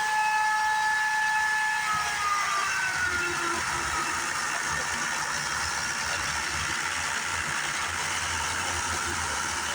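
Greenworks corded electric chainsaw's motor whining at speed, then spinning down with a falling pitch about two seconds in. A generator engine runs steadily underneath.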